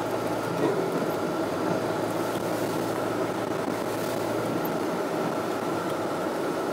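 Steady engine and tyre noise of a car in motion, heard from inside the cabin.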